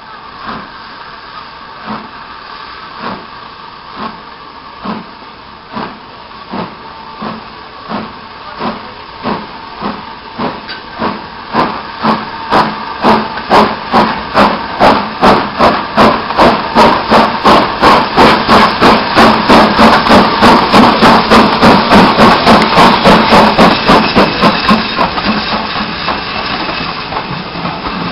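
BR Standard Class 9F 2-10-0 steam locomotive 92212 pulling away with a train: sharp exhaust chuffs over a steady hiss of steam, about one a second at first and quickening steadily as it gathers speed. The beats grow louder as it comes past and run together near the end.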